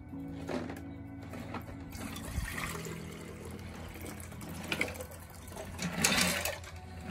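Liquid and small pieces of circuit board with gold card fingers pouring from a glass jar into a glass beaker, a running splash and slither that grows louder about six seconds in.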